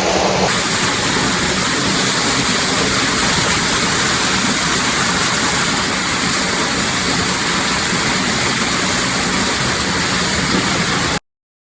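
Steady rush of falling water, like a small waterfall, that cuts off abruptly near the end.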